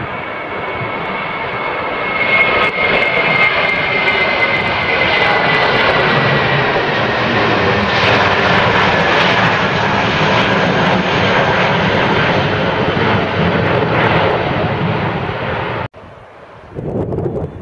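Airbus A320-family twin-engine jet airliner climbing out after takeoff: its engines give a loud, steady roar with a high whine that slowly drops in pitch. Near the end the roar cuts off suddenly and gives way to fainter wind noise on the microphone.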